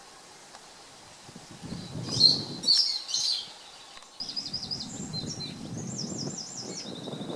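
Woodland songbirds calling and singing: a loud burst of calls about two seconds in, then repeated trilled phrases from about four seconds in, over a low rushing noise.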